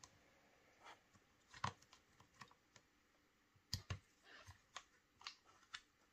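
Faint, scattered small clicks and taps from an Allen key and a Milsig paintball marker's parts being handled while a screw is backed out, with one slightly louder click a little before the middle.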